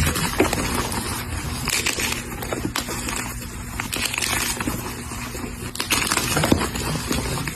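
A block of coloured gym chalk being crushed: dense, continuous crunching and crackling as it crumbles, with sharper crunches every so often.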